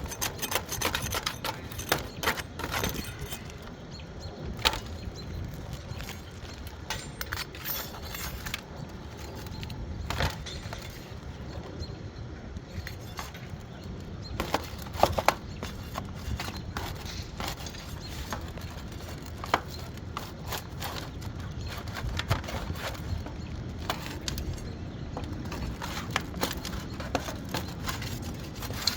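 Irregular sharp clicks, knocks and scrapes of hand work on an asphalt shingle roof, with a few louder knocks among them and a steady low rumble beneath.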